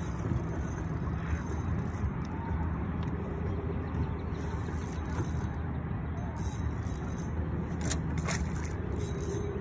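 A motor runs with a steady low hum throughout. A couple of sharp clicks come about eight seconds in.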